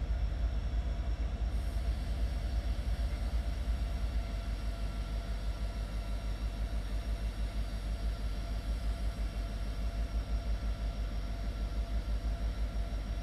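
Kansas City Southern diesel-electric locomotives approaching slowly, their engines giving a steady low rumble that pulses slightly in loudness.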